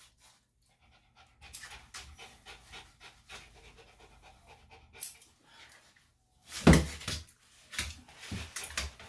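A small senior Bichon–Shih Tzu cross panting quickly, with a few sharp knocks and a louder thud about two-thirds of the way through.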